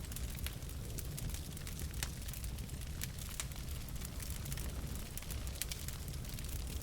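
Wood fire burning in a fireplace: irregular sharp crackles and pops from the logs over a steady low rumble of the flames.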